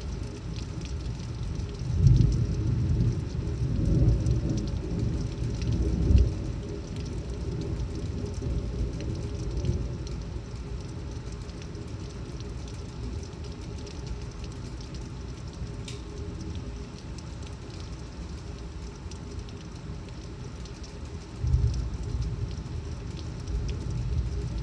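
Heavy thunderstorm rain pouring steadily, with scattered sharp drop ticks. Several low rumbles swell up about two, four and six seconds in, and again near the end.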